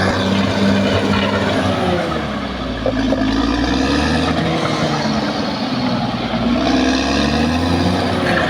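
Caterpillar D6R XL bulldozer's diesel engine running hard, its pitch sagging and recovering twice as it takes and sheds load.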